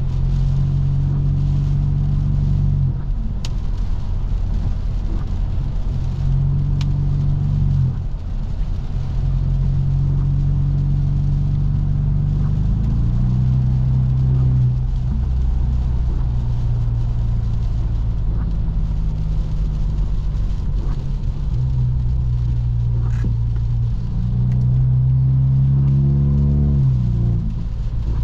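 Exhaust of a straight-piped, Stage 2+ tuned BMW F30 328i's turbocharged 2.0-litre four-cylinder, droning at steady cruising revs with a few brief lifts off the throttle. Near the end the revs climb under acceleration, then cut off sharply.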